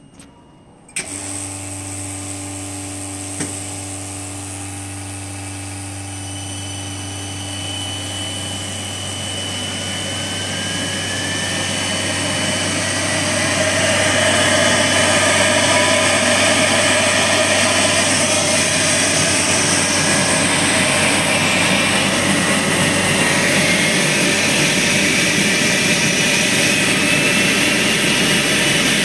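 Turbocharger spinning up on a high-speed dynamic balancing machine. A steady machine hum starts abruptly about a second in. A whine then climbs slowly in pitch as the rotor gains speed, getting louder for about a dozen seconds before leveling off.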